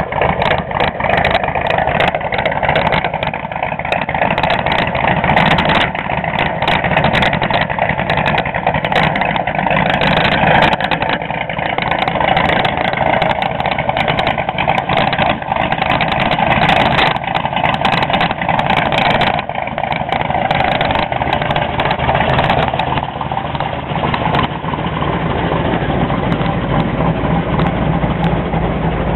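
1969 Camaro SS's 396 big-block V8 idling steadily.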